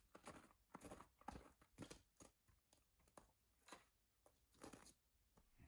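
Faint, irregular crunching and rustling sounds, one or two a second.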